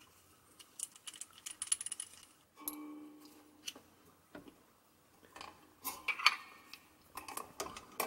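Handling noise from fitting a microphone's shock mount onto a swing-arm lamp stand: scattered small plastic and metal clicks and rattles. A short steady tone sounds about three seconds in.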